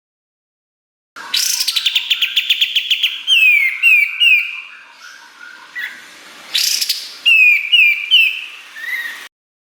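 Kapas tembak singing: after about a second of silence, a fast rattling trill, then a string of sharp down-slurred whistled notes. A second short trill and more slurred notes follow, and the song cuts off shortly before the end.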